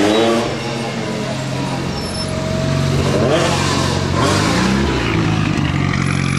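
Historic Mitsubishi rally car's engine idling steadily and revved twice, once at the start and again about three seconds in, the pitch rising then falling back each time.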